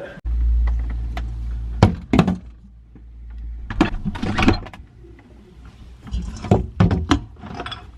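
Knocks and thuds of a kitchen fridge door and containers being handled, with a low rumble in the first second or two.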